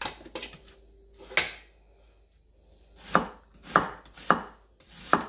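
Chef's knife cutting an onion on a thin flexible cutting mat over a wooden board. There are three cuts in the first second and a half, then a pause, then four slicing strokes about half a second apart.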